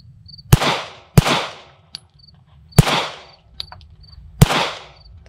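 Four shots from a Staccato P 2011 9mm pistol firing 124-grain rounds: two quick shots, then two more about a second and a half apart each. Each shot has a short echo trailing off.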